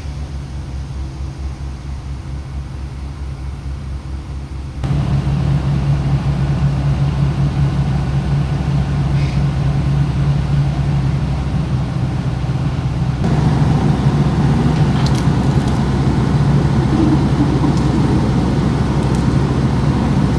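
Komatsu bulldozer's diesel engine running steadily under work, a low even hum that steps abruptly louder about five seconds in and again around thirteen seconds.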